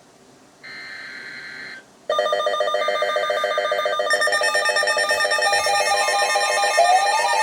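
Emergency Alert System data header: a buzzing, modem-like burst of digital tones about a second long. About two seconds in, a loud steady alert tone of several pitches starts, the EAS attention signal, and near the end it is joined by a tone that rises and falls.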